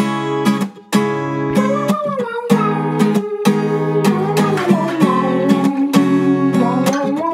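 Background music: strummed acoustic guitar chords in a steady rhythm, with a gliding melody line coming in about a second and a half in.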